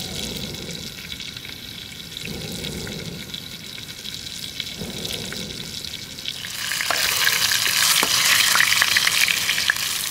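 Food frying in hot oil over a campfire, sizzling. About six and a half seconds in, the sizzle jumps much louder and starts to spit and crackle.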